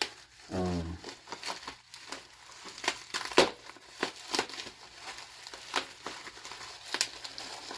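Shipping packaging crinkling and rustling as it is handled and unwrapped by hand, with irregular sharp crackles and clicks.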